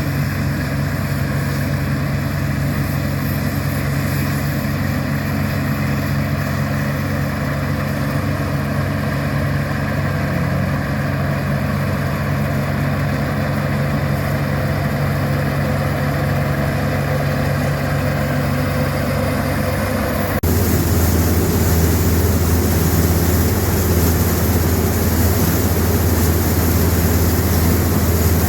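Heavy engine of farm machinery running steadily at constant speed. About twenty seconds in, the sound changes abruptly to a deeper, louder engine note.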